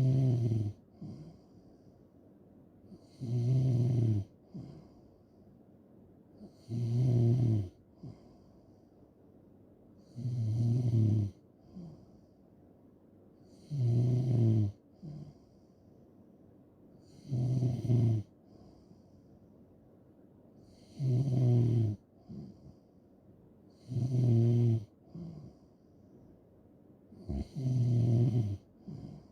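A person snoring in a steady rhythm: nine snores, one about every three and a half seconds, each a low buzzing snore lasting about a second, with quiet gaps between.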